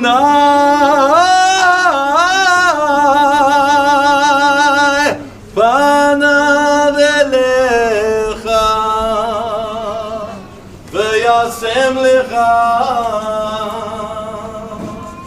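A solo voice singing a slow melody in three long phrases, with held notes and vibrato. No clear accompaniment can be made out, and the last phrase fades out.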